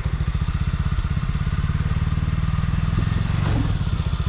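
CFMOTO UFORCE 600 side-by-side's single-cylinder engine idling steadily with an even, rapid low putter.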